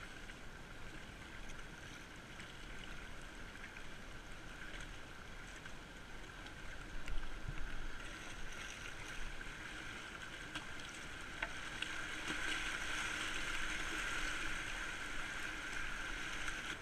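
Fast, muddy river water rushing around a moving kayak, a steady hiss that grows louder in the second half, with a few faint knocks of the paddle and boat.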